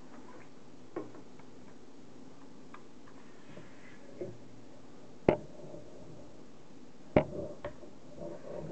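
Clicks and knocks from handling a Saiga AK-47 rifle fitted with a red dot sight and a rail-mounted laser: a faint click about a second in, two sharp loud knocks about five and seven seconds in, and light rustling near the end.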